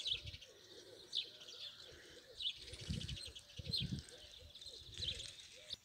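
Outdoor birdsong: a few short, high chirps from small songbirds over repeated low cooing of pigeons, all faint.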